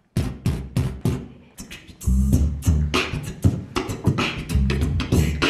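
Music starting suddenly out of silence: sharp percussive hits, joined about two seconds in by a heavy pulsing bass.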